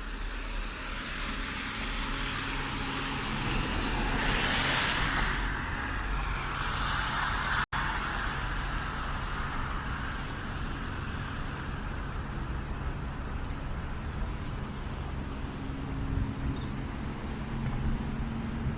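City street traffic: a steady low hum of road traffic, with a vehicle passing about four to seven seconds in, its tyre noise swelling and then falling away.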